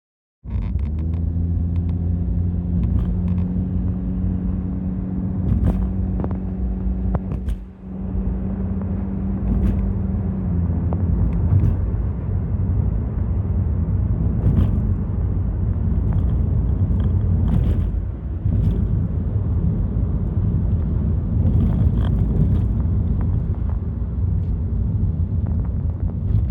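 Subaru Traviq (Opel Zafira) on the move: a steady low rumble of tyres and running gear, with a steady low hum for roughly the first ten seconds that then fades, and a few light clicks and knocks.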